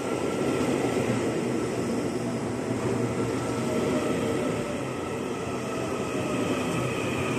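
Taiwan Railways electric commuter train rolling slowly alongside the platform as it pulls into the station and slows: a steady rumble of wheels on rails with a faint electric whine.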